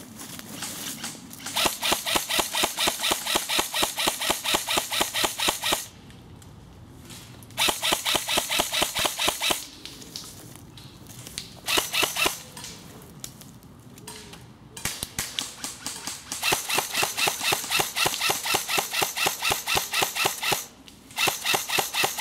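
M4-style airsoft carbine firing on full auto: rapid, evenly spaced shots in about six bursts, the longest running about four seconds, with short pauses between them.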